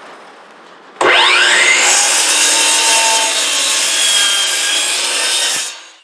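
Power saw spinning up with a quickly rising whine about a second in, then cutting through a wooden board with a loud steady noise that stops shortly before the end.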